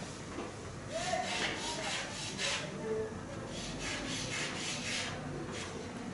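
Chalk scraping on a blackboard in short bursts of quick strokes, hatching coil windings onto a drawing.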